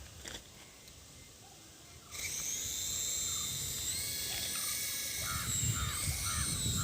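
Small electric motors of a toy RC helicopter whining as the rotors spin up, starting suddenly about two seconds in. The whine is high and steady and shifts in pitch as the throttle changes.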